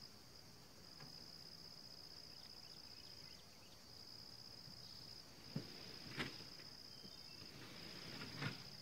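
Insects trilling in a steady high-pitched buzz with brief breaks, faint. Three short knocks come in the second half.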